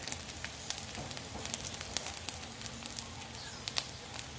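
Split dried fish (daing) frying in hot oil in a wok: a steady sizzle with scattered sharp pops and crackles.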